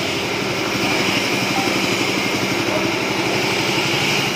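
Mini coffee huller running, driven by its small petrol engine at a steady speed while dried coffee beans are fed into the hopper.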